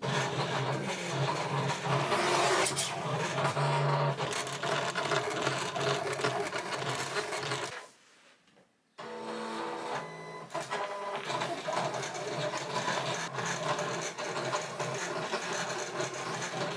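Paper being worked by hand: sheets cut on a paper trimmer, then cards creased on a scoring board, a busy run of scraping, sliding and clicking. The sound cuts out for about a second partway through, then the same kind of noise carries on.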